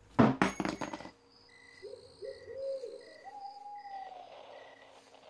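A mobile phone dropped onto a hard floor, clattering for about a second. After it, short high beeps repeat a little over once a second, with a few low owl-like hoots beneath them.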